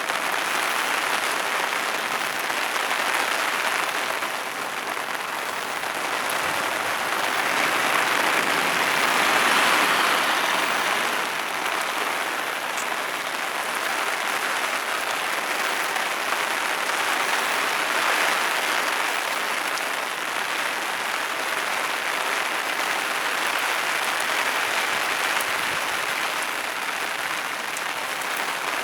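Container wagons of a freight train rolling past, a steady rushing noise of wheels on rail that swells and eases without any distinct clicks or squeal.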